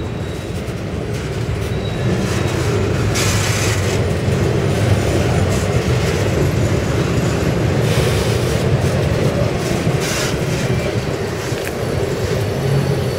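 Rail-train freight cars and a rail unloader car rolling past close by: a steady rumble of steel wheels on the rails, with a few brief, louder high-pitched bursts about three, eight and ten seconds in.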